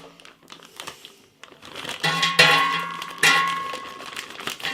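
Frozen potato wedges tipped into a metal air fryer basket, knocking and clattering against it. The louder knocks, about two seconds in, leave a short metallic ring.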